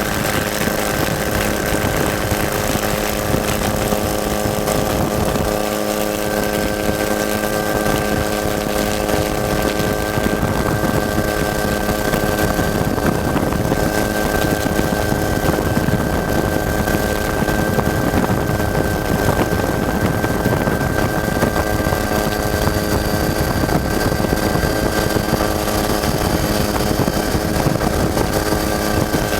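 Ford EcoBoost spec trophy truck running at a steady speed: a steady engine drone held at one pitch over a constant rumble and rattle.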